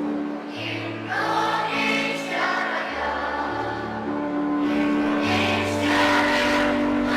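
Children's school choir singing in unison over an instrumental accompaniment, its bass line moving to a new note about every second.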